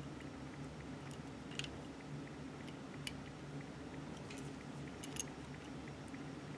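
Faint small clicks and scrapes of a jeweler's screwdriver turning tiny flathead screws into a brass N scale locomotive shell, with fingers handling the model, about half a dozen clicks over a steady low hum.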